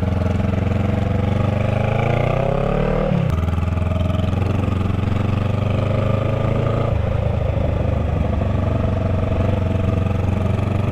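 Honda Rebel 500's parallel-twin engine through a shorty GP slip-on exhaust, ridden under way. The revs climb for about a second, drop sharply about three seconds in, then hold steady.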